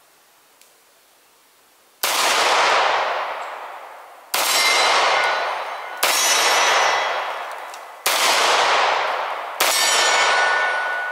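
Five 9mm pistol shots, about one and a half to two seconds apart, each followed by a long echoing decay. A faint ringing tone from struck steel plates hangs on after some shots, longest after the last.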